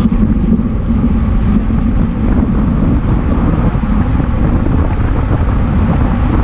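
Steady wind buffeting a bike-mounted camera's microphone at racing speed, with the rolling noise of road-bike tyres on asphalt.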